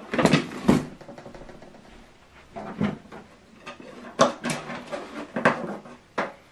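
Handling noise: a compact soundbar being set down and shifted on a cardboard box and its cable handled, giving a series of irregular knocks and thumps.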